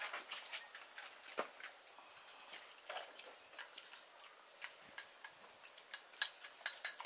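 Scattered light clicks of chopsticks and utensils against ceramic bowls, then from about six seconds in a quick run of ringing clinks, a utensil tapping and scraping a small ceramic bowl.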